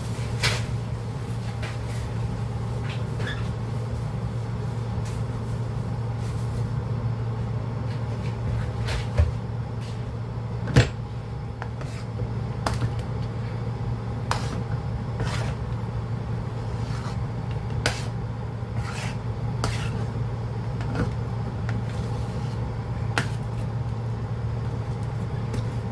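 A spoon or utensil scraping and knocking irregularly against a cooking pot while a thick calamay mixture is stirred, over a steady low hum.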